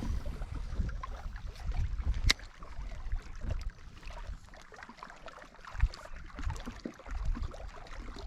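Wind buffeting the microphone in uneven gusts, with a few sharp clicks, the loudest about two seconds in.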